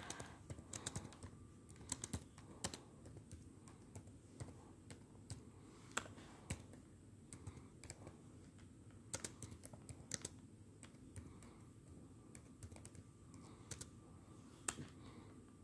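Faint typing on a Samsung laptop keyboard: irregular key clicks in short runs, separated by brief pauses.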